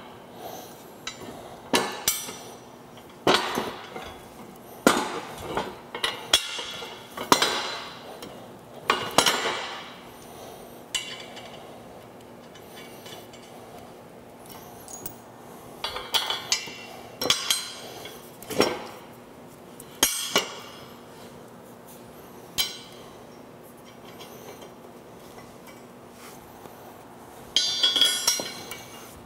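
Steel snow-plow frame parts, bolts and nuts clinking and knocking together as they are handled and fitted by hand: scattered sharp metallic clinks and knocks at uneven intervals, with a quick flurry of clinks near the end.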